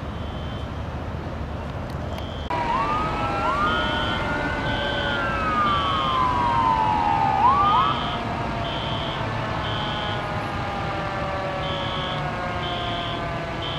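Fire engine siren: a wail rising and falling with a few quick whoops, cutting off about eight seconds in, while another siren tone slowly winds down. Traffic noise and a short high beep repeating about once a second run underneath.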